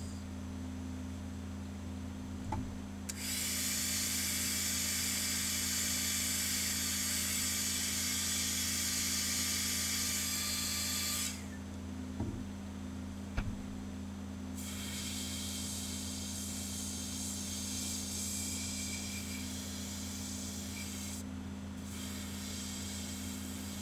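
Airbrush spraying paint with a steady hiss in two long passes: a loud one from about three seconds in to about eleven, then a softer one starting near fifteen seconds with a short break near the end. A steady low hum runs underneath, and a few light knocks come between the passes.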